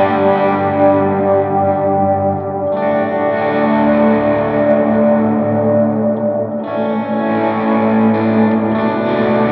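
Electric guitar with Filter'Tron pickups, played through a Line 6 HX Stomp preset with overdrive and echo. Notes ring and sustain, with fresh notes struck about three seconds in and again about seven seconds in.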